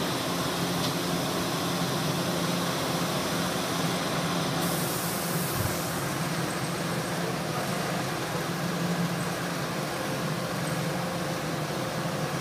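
Steady low hum and hiss of running workshop machinery, with a brighter hiss rising for about a second around four and a half seconds in.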